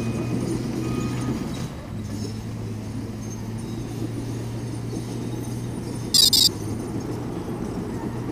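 3DR Solo quadcopter's motors and propellers humming steadily in flight, with a brief high-pitched burst about six seconds in.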